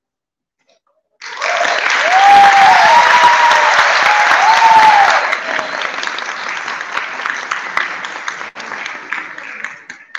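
Audience applauding, starting suddenly about a second in, with a few rising-and-falling cheering voices over the loudest stretch; the clapping eases after about five seconds and carries on more lightly.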